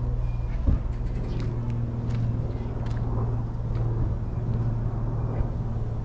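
A steady low hum runs throughout, with a few faint ticks and one soft thump just under a second in.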